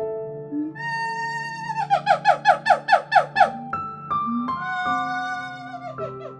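Instrumental background music: held notes, with a quick run of about ten short sliding-down notes in the middle.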